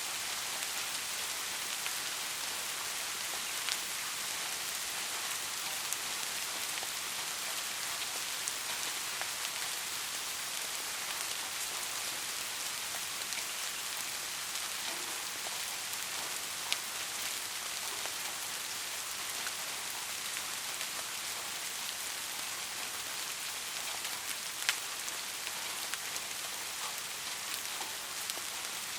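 Steady rain falling on a roof, an even hiss with a few sharper single drop strikes standing out now and then.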